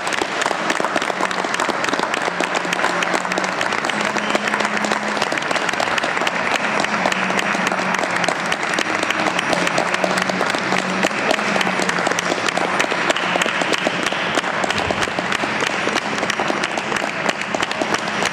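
An audience applauding: a long, unbroken round of clapping from many hands.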